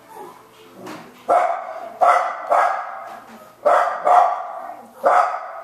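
A run of barks: six short, sharp barks over about four seconds, some coming in quick pairs.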